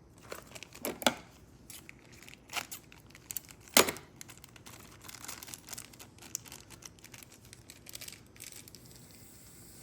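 Small sharp clicks and light rustling from a Ford door lock cylinder and its parts being handled by hand. The clicks come irregularly, the loudest about four seconds in.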